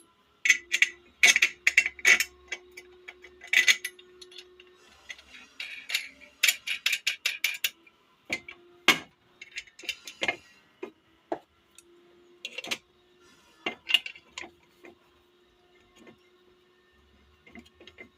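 Small metal parts, likely steel nuts, clinking and clicking as they are handled, in irregular clusters of sharp taps with pauses between.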